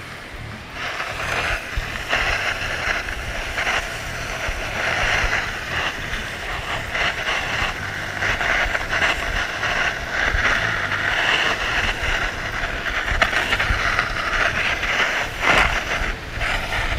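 Continuous scraping hiss of snow under a person glissading seated down a steep snow slope, broken by frequent crunches as the body and heels plough through snow and small ice chunks, with a louder surge about a second before the end.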